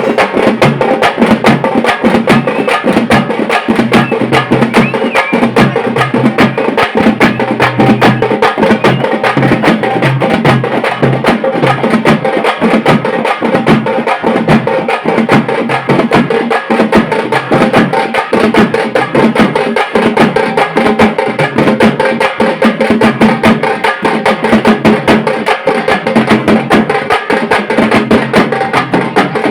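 Loud, fast percussion music: rapid drum and sharp wood-block-like strikes over steady held tones.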